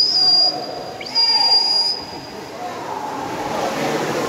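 Shrill whistle blasts from the pool-side crowd cheering a swimming race: one ends about half a second in, and another starts about a second in, sweeping up into a high held note for about a second and a half. Crowd voices run underneath and grow busier near the end.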